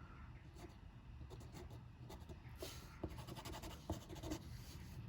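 Faint scratching and a few light clicks from small metal lock parts being handled as the wafers are taken out of a GM door lock cylinder.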